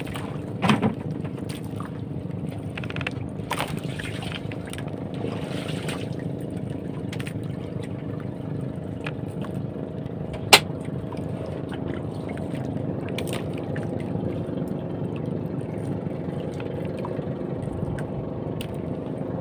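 Small fishing boat's engine idling steadily, with water sloshing against the hull. Scattered clicks and knocks come from the fisherman handling the fish and handline on the wooden boat, the loudest a single sharp knock about ten seconds in.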